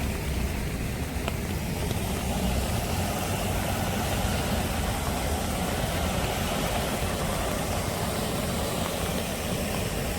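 Steady rainy-day ambience: an even hiss of rain and running stream water over a constant low rumble of traffic.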